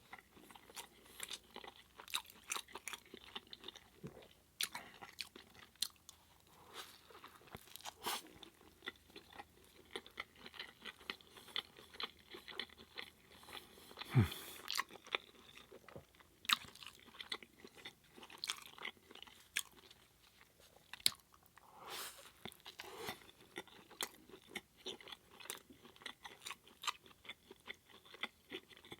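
Close-up chewing of a Beyond Meat burger patty in spaghetti sauce, with many short, irregular mouth clicks and smacks and one stronger thump about halfway through.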